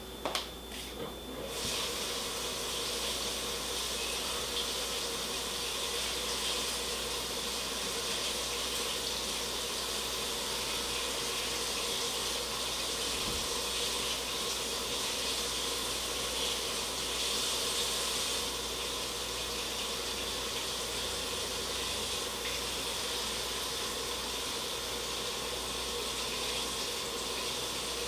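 Water running steadily from a tap, starting about a second and a half in after a few short handling clicks.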